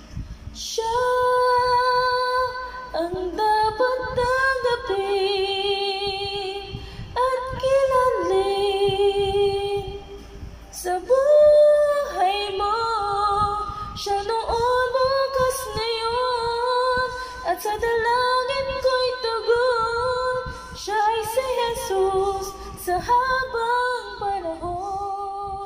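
A woman singing a worship song into a handheld karaoke microphone, holding long notes with vibrato in phrases broken by short breaths.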